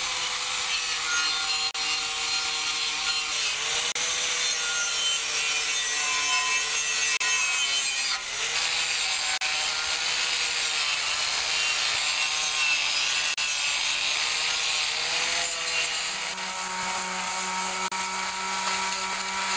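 Hand-held electric sander running with its abrasive pad scraping against the painted steel of a tractor frame, feathering the edges of the old paint before repainting. The motor's pitch wavers as the sander is pressed and moved, then holds steadier for the last few seconds.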